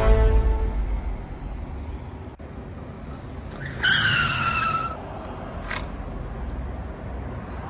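Electric kick scooter braking to a stop with a high squeal of about a second, falling slightly in pitch, about four seconds in, over a steady low rumble. A music hit fades out at the start, and a short click follows the squeal.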